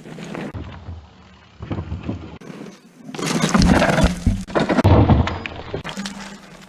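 Enduro mountain bike descending a rough trail at speed, heard close up from a mounted action camera: tyres and bike rattling and knocking over rocks, with a heavy rumbling stretch loudest in the second half.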